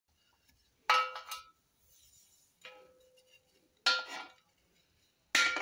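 Metal clinks as a spirit level and tools are set down on a welded steel lathe bed: a handful of sharp knocks, one faint, the last two close together near the end, each with a brief ringing tone.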